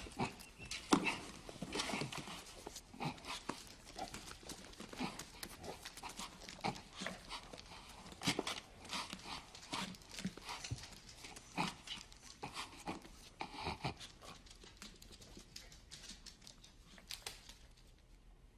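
Dog growling and panting in short, ragged, irregular bursts that die away near the end.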